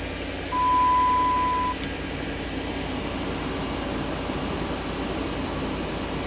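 Dodge Ram 1500's 5.7-liter V8 idling steadily just after start-up, with a misfire on cylinder 4. About half a second in, a loud steady beep sounds for about a second.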